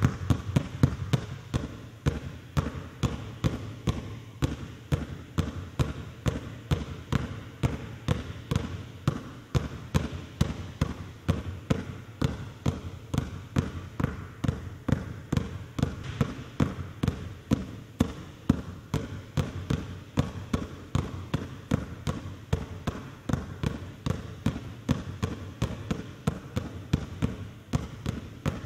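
Two basketballs dribbled on a hardwood gym floor: a quick, even rhythm of bounces, roughly three a second.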